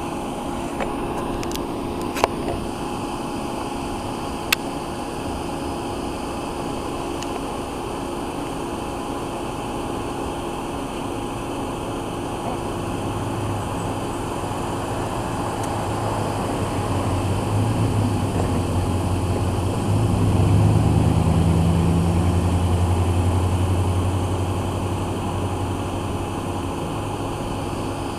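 Locomotive 507's engine, a distant low drone that swells from about halfway through, is loudest about three-quarters in, then eases off as the train backs toward the depot, over a steady background hiss.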